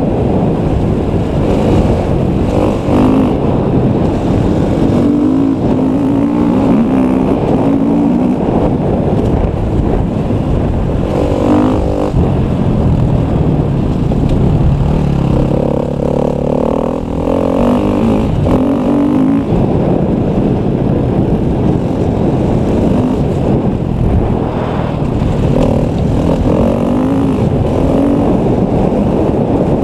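KTM 250 EXC enduro motorcycle engine revving up and down as the bike is ridden through the gears, with wind buffeting the microphone throughout.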